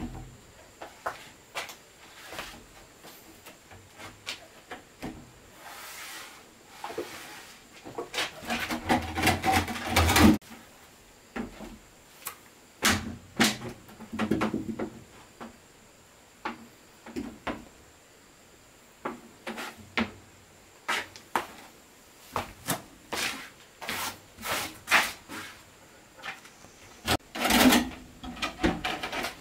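Wood being worked and handled: irregular sharp knocks and taps, with a louder stretch of rubbing about eight to ten seconds in and another short one near the end.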